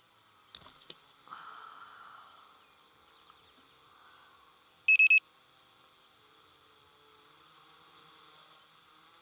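Three short, loud electronic beeps in quick succession about five seconds in, from a LiPo battery voltage checker reading a 3S drone battery at 10.8 volts. Otherwise a faint steady high hum and a few small clicks near the start.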